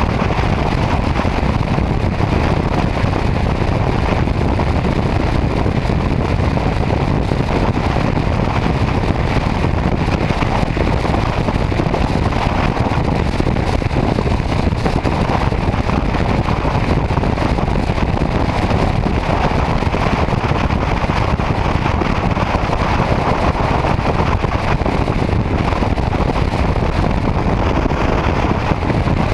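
Steady rush of wind on the microphone and road noise from a motorcycle cruising at highway speed, even and unbroken throughout.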